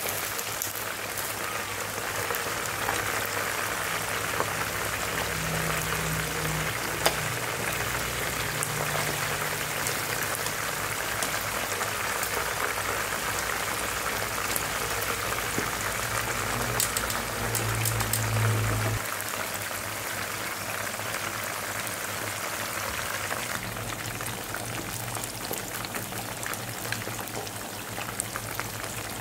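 Two whole fish deep-frying in hot oil in a wok: a steady, crackling sizzle. A few sharp clicks of metal tongs turning the fish come now and then.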